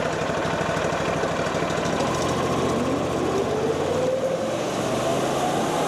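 Engine of a portable swing-blade sawmill running steadily, with a whine that rises in pitch through the middle and latter part.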